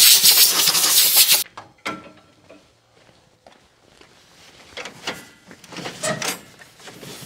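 Compressed-air blow gun blasting dust off the tractor in a loud, steady hiss that cuts off about a second and a half in. After it come a click and a few faint knocks and rattles.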